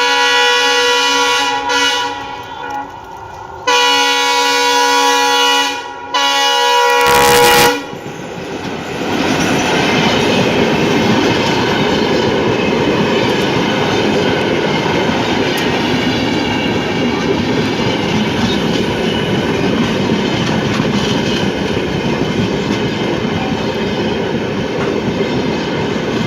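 Horn of a WDG3A ALCO diesel locomotive sounding three blasts, the last one short, then the express train passing at speed with a loud steady rush and clatter of wheels over the rails.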